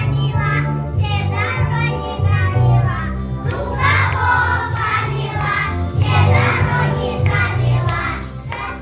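Children singing a New Year song together over a backing track with a steady bass. Jingle bells come in about three and a half seconds in and keep jingling until near the end.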